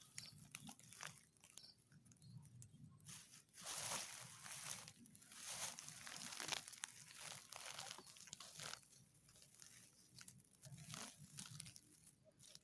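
Faint rustling and crackling that comes in short, irregular bursts, with a few louder ones in the middle.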